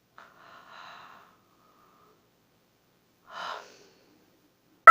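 A person's soft breathy gasps and breaths during a yawn: faint breath noise in the first second, then a short breathy burst about three and a half seconds in. Right at the end a loud, high-pitched drawn-out yawning sound begins.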